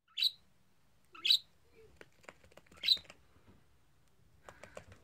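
Budgerigar giving three short, loud chirps, then faint rapid clicks near the end as it steps on a crinkly aluminium-foil mat.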